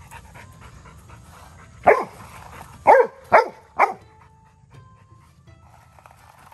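Labrador retriever puppy barking: four sharp barks, one and then a quick run of three.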